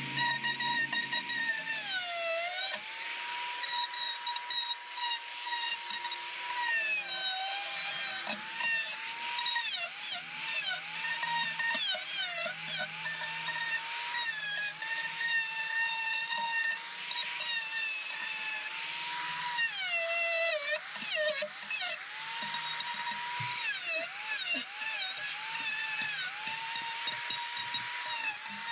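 High-speed rotary carving tools, such as a cordless drill with a carving burr, whining steadily. The pitch dips each time the burr bites into the wood, over a rasp of wood being ground away, as the edges of chainsaw-carved sign letters are cleaned up.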